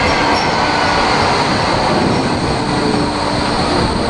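A Rotterdam RET metro train running along the track, a steady, loud rumble of wheels on rail with a faint motor hum.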